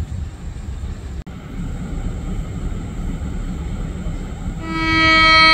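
Train horn starting a single steady blast about four and a half seconds in, over a constant low rumble.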